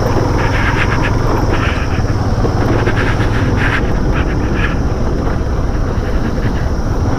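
A vehicle's engine running steadily on the road, a constant low drone under wind rushing over the microphone.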